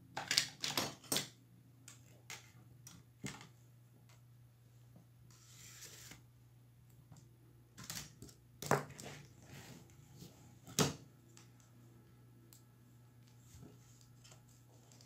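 Clicks and light knocks of laptop parts being handled on a cloth-covered table as the bare motherboard is moved about and a thermal paste syringe is picked up. There is a quick cluster of clicks in the first second, a brief rustle midway and single knocks later, over a faint steady hum.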